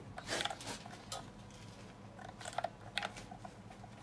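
Hands working the gas control valve of a water heater while lighting it, with a few faint, scattered clicks and taps from the plastic valve housing and its buttons.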